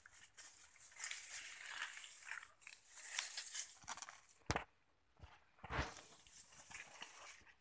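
Leaves and twigs rustling and crackling unevenly, with one sharp snap about halfway through and a dull thud a second later.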